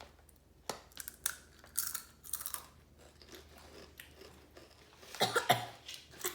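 Chewing of a very hot tortilla chip, with several sharp crunches of the first bites in the first two and a half seconds, then quieter chewing. A louder short burst comes about five seconds in.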